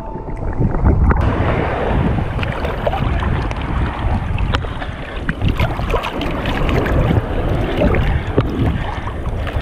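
Shallow surf water sloshing and splashing against a camera held at the waterline, with wind buffeting the microphone. The sound is muffled for about the first second while the camera is under the water.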